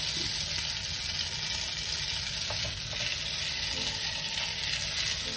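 Linguine sizzling in a hot frying pan as garlic-butter and wine sauce is poured in and tossed with metal tongs. There is a steady sizzle with a couple of faint clicks about halfway through.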